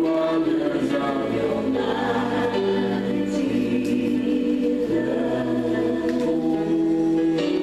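A choir singing gospel music, moving through held chords.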